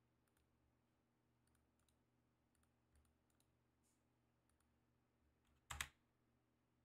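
Near silence with a few faint computer mouse clicks, and one louder click near the end.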